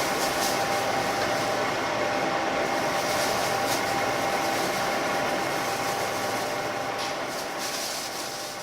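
Interior running noise of a JR Shikoku 2000-series diesel railcar: the underfloor diesel engine and the wheels on the rails make a steady rumble with a steady tone, and the sound fades out near the end.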